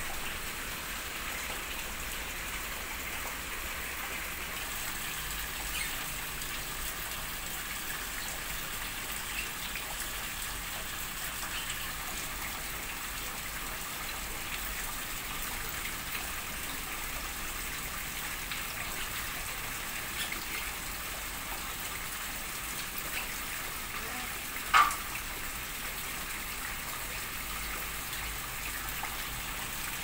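Steady hiss of falling water, with faint scattered ticks and one short, sharp, louder sound near the end.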